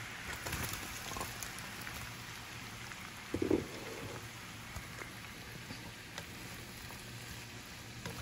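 Garlic butter sizzling steadily in a frying pan as raw shell-on shrimp are tipped in from a plate, with a brief louder burst about three and a half seconds in.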